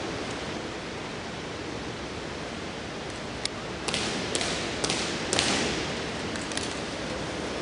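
Drill boots stamping on a concrete arena floor: about six sharp, echoing stamps roughly half a second apart in the second half, over a steady hiss of the large hall.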